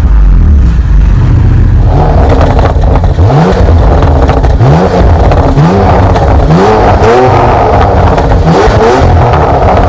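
Porsche Macan Turbo's 3.6-litre twin-turbo V6 exhaust, the engine running low at first and then blipped in quick revs about once a second from about three seconds in. Each rev rises sharply, with crackling pops and bangs between the blips.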